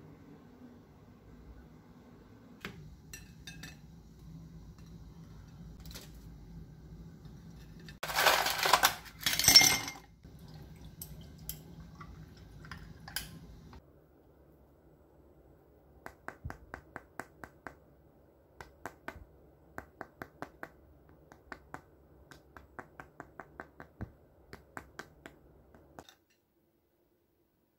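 Crisp, sugar-glazed flattened croissants (krungji) being handled and plated: a loud crackly rustle about eight seconds in, then a long run of small sharp clicks and taps.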